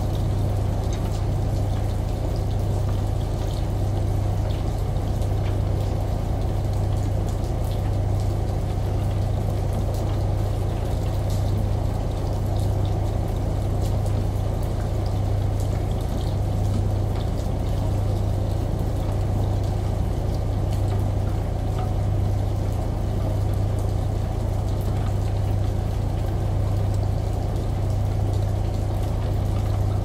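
Washing machine droning with a steady low hum, layered with running shower water and rain falling outside, with faint scattered drip ticks.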